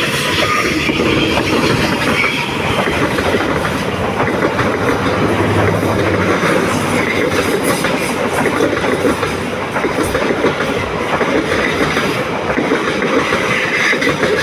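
Train passing close by, a continuous loud rolling rumble with wheels clattering over rail joints, fading just as it ends.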